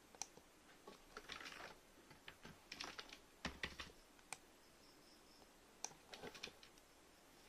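Faint, irregular clicking of a computer keyboard and mouse: a few scattered keystrokes and clicks, some in short clusters, with pauses between.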